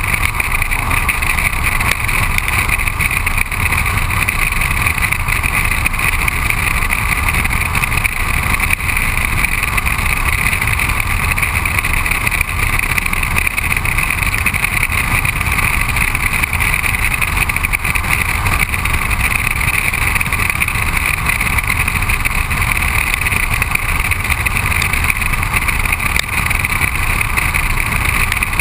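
Steady wind rush and tyre noise from a car driving at road speed, picked up by a camera mounted on the outside of the car beside the front wheel.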